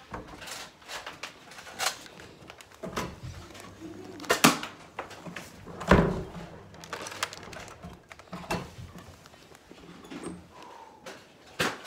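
Scattered knocks, bumps and clatter of handling as the phone and a plastic toy blaster are moved against a wooden door and clothing, with two loud sharp knocks about four and a half and six seconds in.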